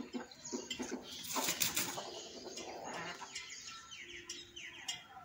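Birds chirping in a run of short, quick, falling chirps, with a brief rustle of movement about a second and a half in.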